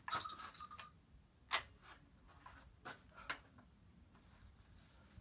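A few sharp metallic clicks from a Beretta 1301 Competition semi-automatic shotgun being loaded with slugs, spread a second or so apart, the loudest about one and a half seconds in.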